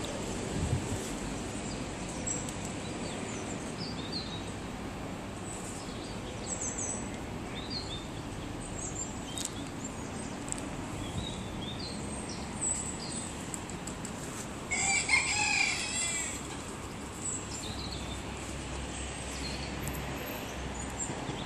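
Birds calling outdoors: scattered short high chirps throughout, and about fifteen seconds in a louder, harsher call lasting about a second, over a steady background hiss.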